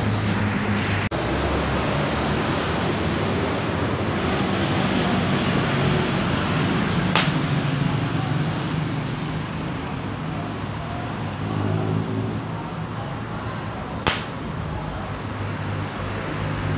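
Gas cutting torch hissing steadily as it cuts rusted sheet steel on a Jeep body tub, with two sharp cracks about seven seconds apart.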